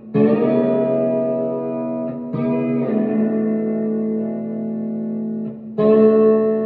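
Stratocaster-style electric guitar played through its Supro Roadhouse bridge pickup: three chords strummed about two to three seconds apart, each left to ring out.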